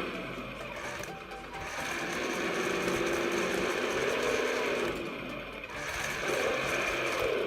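Simulated engine sound from the RC truck's ESS One+ sound module, a fast mechanical putter that revs up and back down a couple of times as the throttle is worked.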